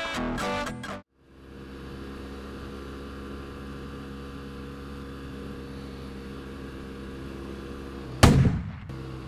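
Guitar music cuts off about a second in, followed by a BMW F800R motorcycle's parallel-twin engine running steadily at cruising speed. Near the end a single loud gunshot-like bang, an added sound effect, is the loudest sound and dies away within about half a second; after it the engine note falls.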